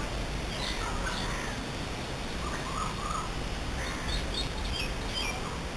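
Birds calling in the background: a few short calls about a second in, three more near the middle, then a run of quick high chirps in the last two seconds, over a steady hiss.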